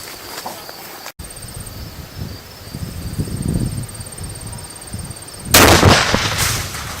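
A 4-pound Shockwave binary exploding target going off inside a refrigerator: one sudden loud blast about five and a half seconds in, with a rumbling tail that fades over about a second and a half.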